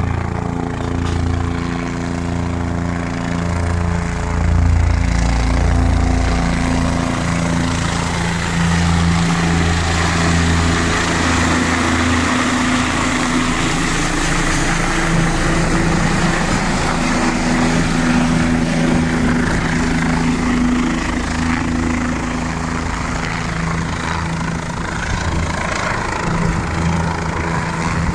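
Helicopter flying low overhead: the steady beat of the main rotor over the turbine's loud rushing noise.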